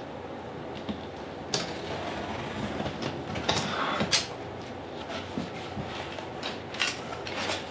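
A box cutter slicing through the packing tape along a cardboard box's seam, scratchy with sharp clicks, then the cardboard flaps being pulled open with scattered rustles and clicks.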